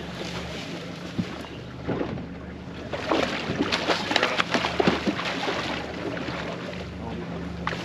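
A boat's engine running steadily, with a run of sharp clicks and knocks about three to five seconds in.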